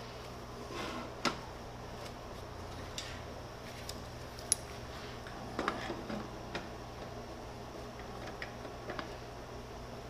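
Scattered light metal clicks and knocks as sheet-steel drawer parts, a square and a locking welding clamp are handled and set against each other, the sharpest about a second in and a few more clustered around the middle. A low steady hum sits underneath.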